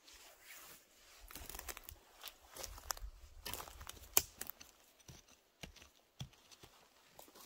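Irregular crackling and rustling of dry material being disturbed, with sharp snaps scattered through it and low rumbles of handling noise for a couple of seconds early on.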